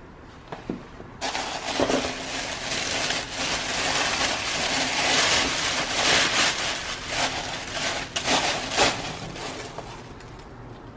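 Tissue paper rustling and crinkling loudly as it is pulled and crumpled out of a cardboard gift box. It starts about a second in, is a dense run of quick crackles, and dies down near the end.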